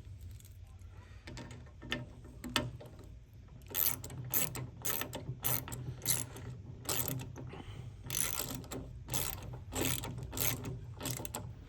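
Socket ratchet wrench clicking through repeated strokes as bolts are tightened, the strokes sparse at first and coming steadily from about four seconds in.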